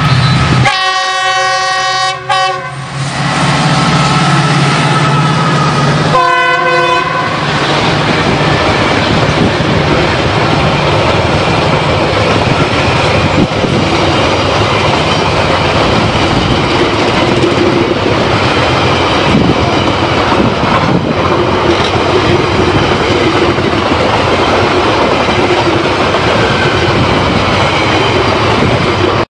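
WDM-2A diesel locomotive (ALCO 16-cylinder engine) sounding its horn twice as it passes at speed, a blast of about two seconds just after the start and a shorter one about six seconds in, over the low throb of its engine. Then the passenger coaches rush by for the rest of the time, wheels clattering over the rail joints.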